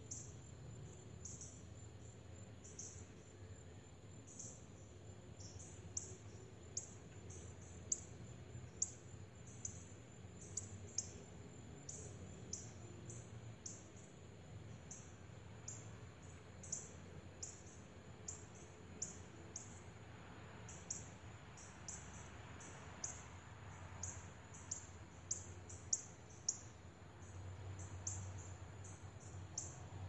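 House sparrows chirping: short, high, thin calls repeated irregularly about once or twice a second, a few louder than the rest, over a faint low rumble.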